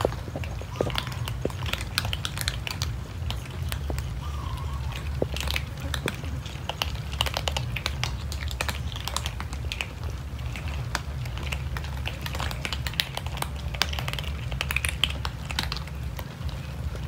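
A group of cats crunching dry kibble, many quick irregular crackly bites and chews overlapping throughout, over a steady low rumble.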